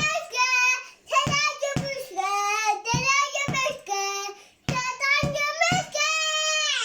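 A toddler singing wordless syllables in a high voice: a string of short notes, then a long held note near the end that slides down as it ends.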